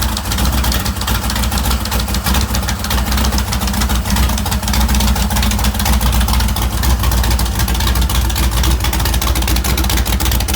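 Freshly rebuilt 385 engine running steadily after its first start, the exhaust pulses coming quickly and evenly.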